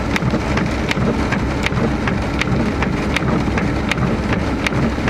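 Rain falling, with single drops landing close by as sharp, irregular ticks, a few each second, over a steady low rumble.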